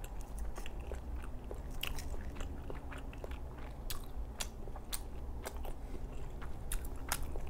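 A person chewing a mouthful of cream pasta close to the microphone, with wet smacking and many short, sharp mouth clicks throughout.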